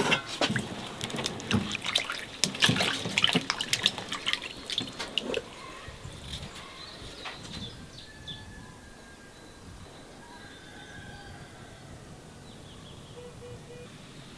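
Water splashing and dripping as peeled potatoes are handled in a basin of water, a busy run of splashes for about the first five seconds. Then quieter outdoor background with a few faint bird calls.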